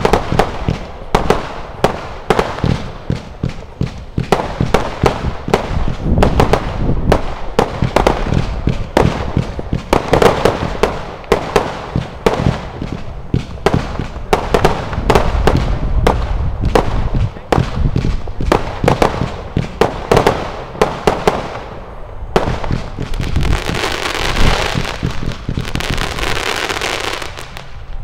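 Consumer firework battery firing: a fast, unbroken string of shots and bangs, with a dense spell of crackling near the end.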